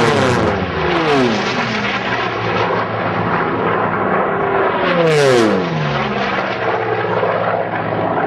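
Unlimited-class racing planes, big piston-engined WWII fighters, flying past at full power. The engine note drops in pitch as a plane passes early on and again about five seconds in, with a steady drone between.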